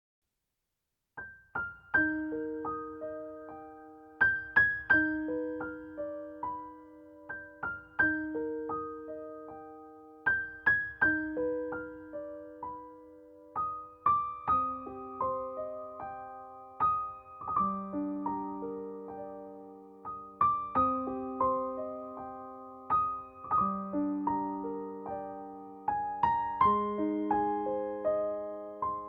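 Background music: slow solo piano (or electric piano) playing gentle arpeggiated phrases of single decaying notes, starting about a second in.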